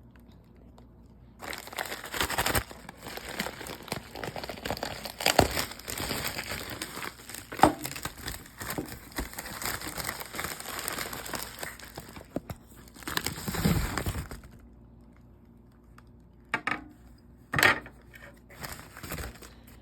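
Crinkly packaging being handled and unwrapped from a new heating element: a dense crackling rustle lasting about thirteen seconds, followed near the end by a few separate sharp clicks.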